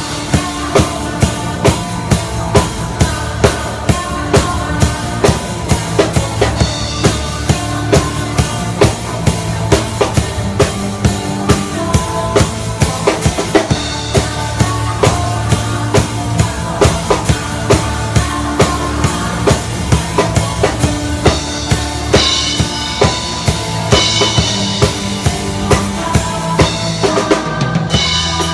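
Band music with a drum kit playing a steady beat, kick and snare, over sustained low notes.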